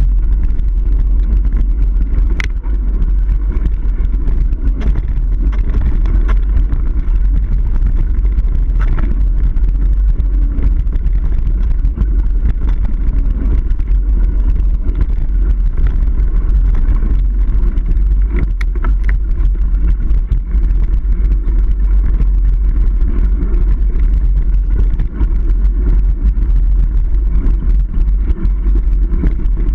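Niner Jet 9 RDO full-suspension mountain bike rolling fast down dirt singletrack, heard on the riding camera's microphone as a loud, steady low rumble of wind buffeting and tyre noise. A few sharp clicks and rattles from the bike over the rough trail stand out, about two seconds in, around nine seconds and again around nineteen seconds.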